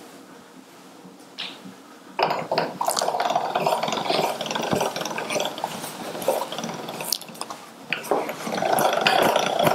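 Hand-cranked pasta machine rolling a sheet of egg pasta dough through its steel rollers, the crank and gears turning with a continuous grinding whir and small clicks that start about two seconds in.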